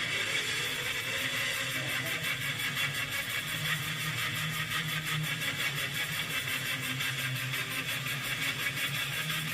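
A steady machine hum with a fast, even pulsing.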